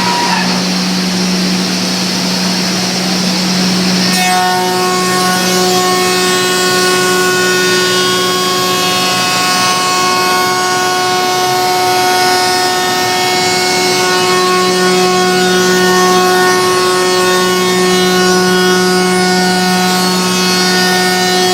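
Biesse Rover CNC router running: a steady hum under a continuous noise of machining and extraction. About four seconds in, a steady high whine with several tones sets in and holds as the spindle works.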